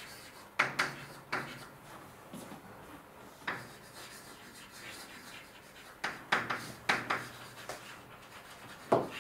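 Writing by hand on a board: a series of short scratching strokes, coming in clusters with pauses between, most of them around six to seven seconds in.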